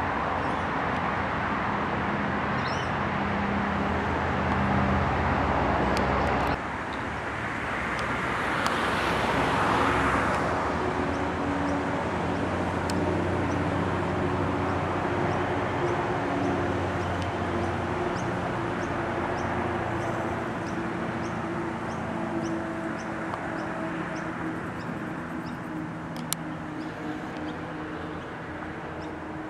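Steady outdoor traffic rumble with a low hum, swelling for a few seconds about a third of the way through. Through the middle, a bird gives short high notes about once or twice a second, and there is one sharp click near the end.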